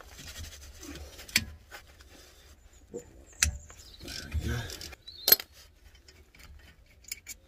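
Socket ratchet clicking and sharp metal clinks as the front brake caliper bolts are undone, with the loudest clinks about a second and a half, three and a half and five seconds in.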